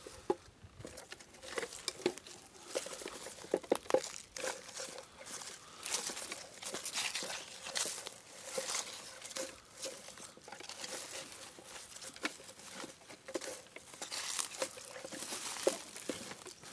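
Footsteps crunching and rustling through dry pine needles, leaves and twigs, with irregular crackles and snaps.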